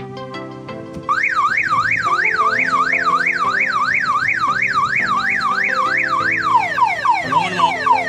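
Aftermarket car alarm siren, set off from its key-fob remote, starting about a second in with a fast up-and-down wail, about three sweeps a second. Near the end it switches to a quick run of falling chirps.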